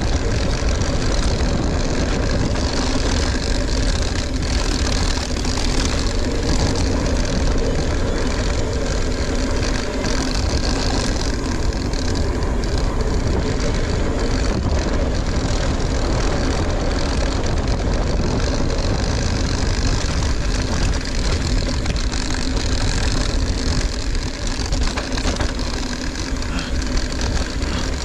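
Mountain bike riding down a trail: a steady rush of tyres and wind, with a constant fine rattle from the bike.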